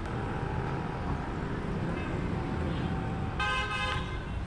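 Steady low background rumble, with one short, steady pitched toot about three and a half seconds in.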